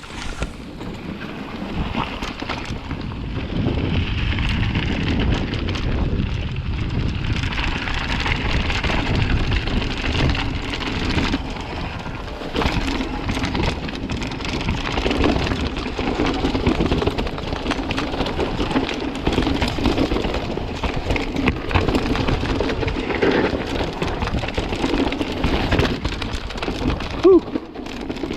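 Mountain bike riding down a dirt trail: steady wind and tyre rumble with constant small rattles and clicks from the bike. A brief squeal near the end.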